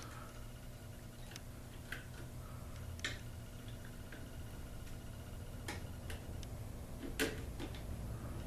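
Scattered small clicks and taps, about seven in all, the loudest about seven seconds in, from wire connectors being pushed into a garage door opener's terminals, over a steady low hum.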